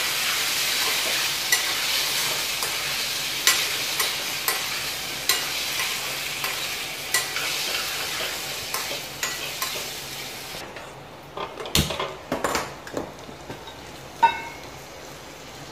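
Ice apple pieces sizzling as they fry in oil in a stainless steel pan, stirred with a steel spoon that scrapes and taps the pan every second or so. The sizzle dies away about ten seconds in, followed by a few sharp metal clinks.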